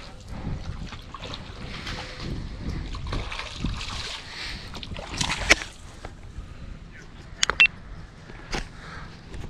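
Water splashing and lapping around a kayak hull. A few sharp clicks and knocks stand out about five and a half seconds in and again in a quick cluster a couple of seconds later.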